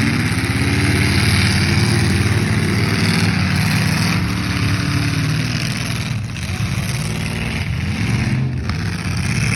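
Demolition derby cars' engines running and revving, their pitch rising and falling several times over a steady wash of noise.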